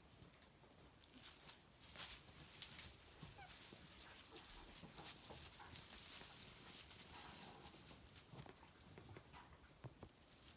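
Goats in a pen: faint soft calls with light rustling and small knocks, a faint call clearest about three quarters of the way through.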